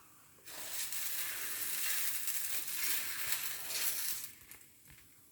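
Dosa batter sizzling on a hot pan as a new dosa is started, a steady hiss that begins about half a second in and dies away after about four seconds.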